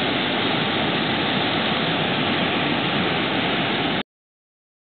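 Tidal rapids rushing: whitewater and standing waves churning through a narrow saltwater channel on a strong running tide, a steady, even rush of water. It cuts off suddenly about four seconds in.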